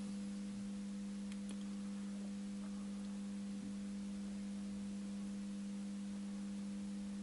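Steady electrical hum of a transformer under power, with the receiver brought up to line voltage on a variable isolation transformer: one strong low tone with fainter higher tones above it, unchanging throughout.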